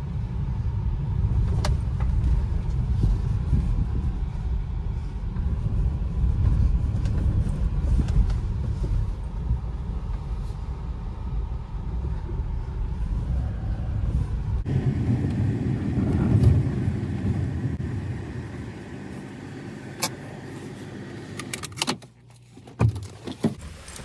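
Inside a moving car: a steady low road-and-engine rumble that changes abruptly a little past halfway to a lighter sound, which fades. Near the end come a few sharp clicks and knocks.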